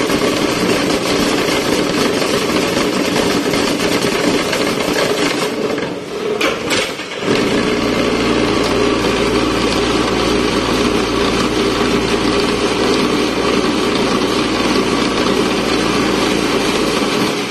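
DASWELL BMM 4-26 automatic hollow block machine running through its block-pressing cycle, a loud steady mechanical drone. About seven seconds in, after a short dip, a deeper hum joins and holds until just before the end.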